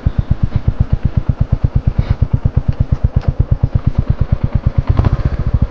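Motorcycle engine running at low revs, with an even, rapid thumping beat of about ten pulses a second. Near the end it is revved and the beat blurs into a steadier drone.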